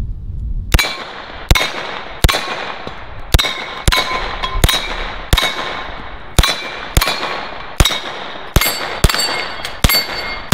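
UZI Model B 9mm short-barreled rifle fired shot by shot, about a dozen shots at a steady pace of roughly one every two-thirds of a second. Each shot is followed by the ringing clang of a steel plate on the Texas star targets being hit.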